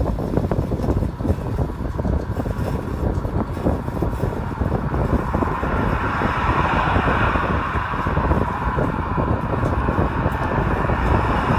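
Car on the move: a steady low rumble of engine and road noise, with a hiss that grows louder from about halfway through.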